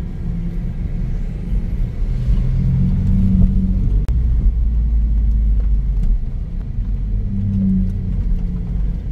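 Drift car engines running on the track, a loud low rumble with the engine note swelling and rising twice as a car is driven hard.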